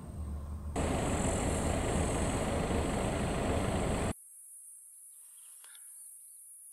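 A vehicle engine runs with a loud, even rushing rumble that cuts off abruptly about four seconds in. After it, a quiet steady high hiss remains, with a few faint chirps and ticks.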